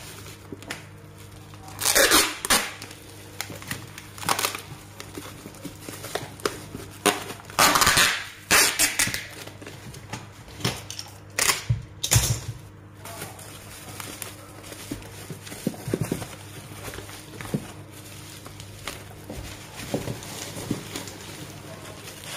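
Bubble wrap being handled and folded around a box: irregular rustling and crinkling of the plastic sheet, with louder bursts about two seconds in and again around eight seconds in.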